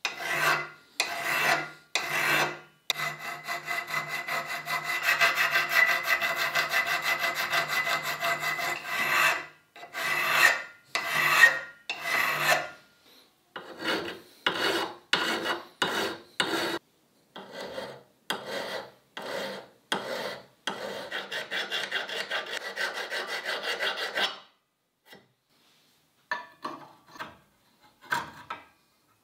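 Hand file cutting steel. It starts with separate rasping strokes, then a few seconds of quick continuous filing, more single strokes, and another steady run of filing. A few light clicks come near the end.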